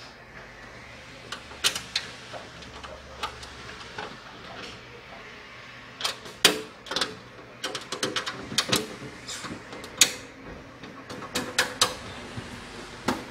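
Hands handling a desktop computer case: a string of sharp clicks and knocks on its metal and plastic panels, coming thicker in the second half.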